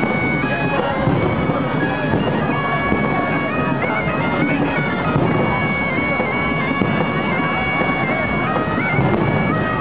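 Several gralles, the shrill Catalan double-reed shawms, playing a melody in held, stepped notes over the hubbub of a dense crowd.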